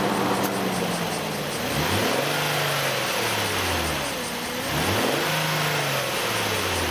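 Nissan Elgrand E51's 2.5-litre V6 engine revved up and down several times in a row, with the air-conditioning compressor engaged. The owner hears an abnormal noise from around 2,000 rpm only when the compressor is working.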